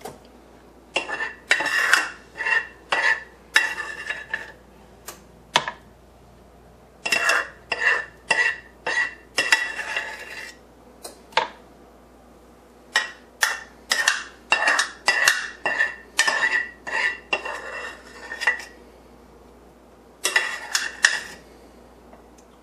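A spoon clinking and scraping against a frying pan in runs of quick taps with short pauses, as ham and pepper filling is scooped out of the pan.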